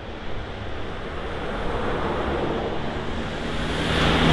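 Street traffic noise, then a van coming close and passing: its engine and tyre noise swell toward the end over a steady wash of road noise.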